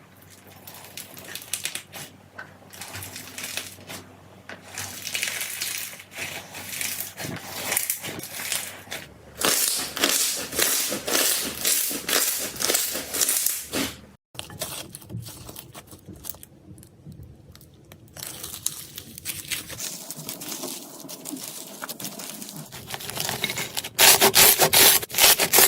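Slime being squeezed, poked and stretched by hand, giving dense crackling and popping clicks. There is a short break about halfway, and the strokes are louder and quicker near the end.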